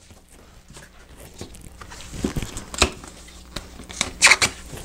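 Hands folding and pressing together a black fold-up drawer box: scattered light taps and rustles, a knock about three seconds in, and a louder brief rustling scrape about four seconds in.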